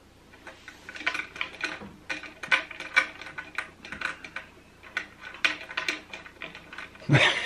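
Irregular metallic clicking and clinking, several clicks a second, from a threaded leveling bolt and its nut and washer under a sewing machine's flatbed table being turned to level the table.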